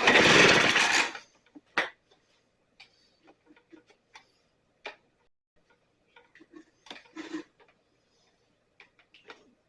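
A STIHL BR 450 backpack blower's recoil starter pulled once, its two-stroke engine cranking for about a second without catching. Then scattered light clicks and taps.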